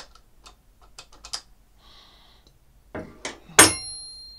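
Handling of metal tools and air fittings: a few small clicks and taps, then two sharp metallic clanks near the end, the louder one ringing on for most of a second like a steel tool set down on metal.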